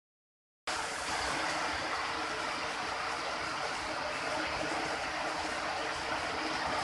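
Steady rushing background noise with no clear events, starting abruptly after a short silence under a second in.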